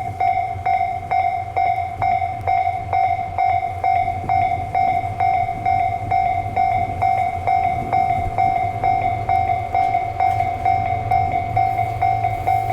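Japanese level-crossing alarm ringing, a repeating bell strike about twice a second over a steady tone, with the low rumble of a DE10 diesel-hydraulic locomotive approaching very slowly beneath it and growing toward the end.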